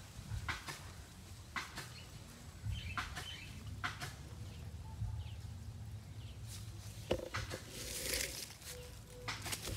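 A hand rustling and splashing through shallow water and floating water hyacinth while grabbing a fish: a string of sharp crackles and splashes about once a second, over a low steady rumble. Seven to eight seconds in comes a louder splash with a brief wavering tone.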